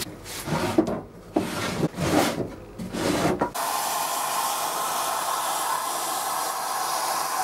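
Wooden knocks and rubbing as the bureau's drawers are handled. About halfway through, a Kärcher WD 6 shop vacuum comes in abruptly with a steady rushing hiss as its nozzle cleans dust out of the cabinet.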